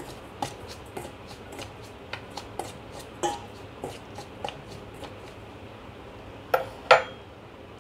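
Metal spoon stirring dry flour and semolina in a stainless steel bowl: light irregular clinks and scrapes of the spoon against the bowl, with two louder knocks near the end.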